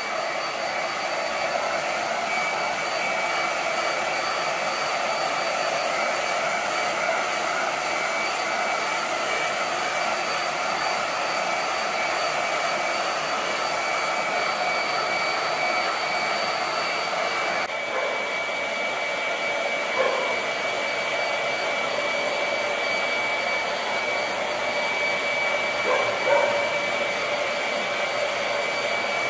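Handheld hair dryer running steadily at close range, an even blowing rush with a high motor whine, as it blows loose shedding hair out of a dog's thick coat.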